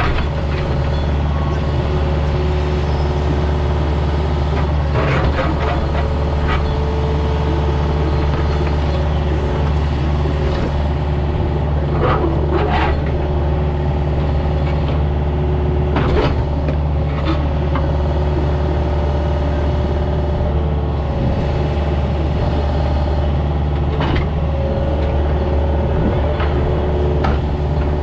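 Diesel engine of a compact excavator running steadily under work, with a few scattered knocks and clunks.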